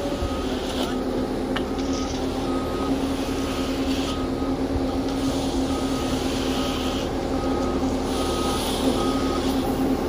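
Concrete mixer truck reversing: its backup alarm beeps about twice a second over the steady running of its diesel engine, and the beeping stops near the end.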